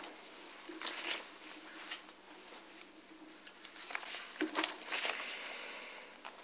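Paper rustling: sheets of paper being handled and leafed through at a table, in a few short bursts with quieter handling between.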